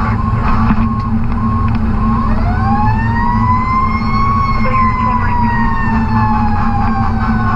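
Fire truck siren winding up about two seconds in to a high wail, then slowly falling in pitch. Under it runs the steady rumble of the Sutphen ladder truck's Caterpillar C12 diesel, heard inside the cab. A short high beep repeats about twice a second.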